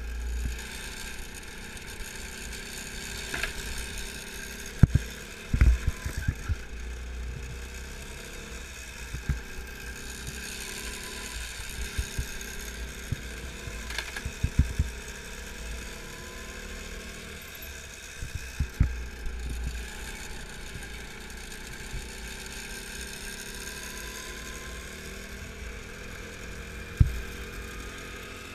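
Go-kart engine heard from the driver's seat, its revs rising and falling lap after lap through the corners, over a steady low rumble. Several sharp thumps are heard along the way.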